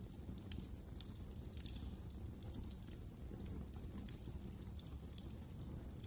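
Wood fire burning in a fireplace: irregular sharp crackles and pops from the logs over a steady low rumble.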